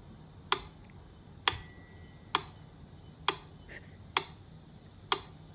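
Sharp, evenly spaced ticks, a little under one a second, like a clock. A single bell-like ding rings out about a second and a half in.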